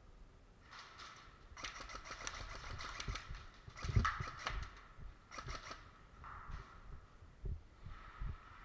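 Rustling and scuffing in irregular bursts, with a few dull thumps: an airsoft player moving, footsteps and gear brushing against clothing.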